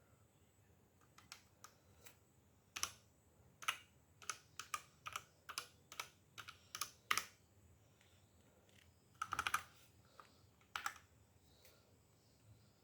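Keys being pressed on a ZIFRIEND KA6406 mechanical keyboard: a string of separate, irregular clicks for several seconds, then a quick burst of keystrokes and one last click after a pause.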